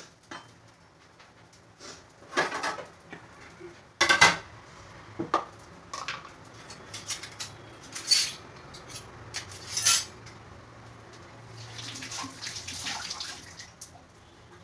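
A spatula clanking and scraping against a dosa pan on a gas stove, with several sharp knocks of kitchen utensils. A brief hissing rush comes near the end.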